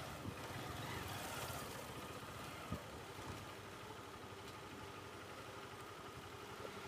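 Small motorcycle engine running quietly at low speed as the bike rolls over cobblestones, with a single knock about two and a half seconds in.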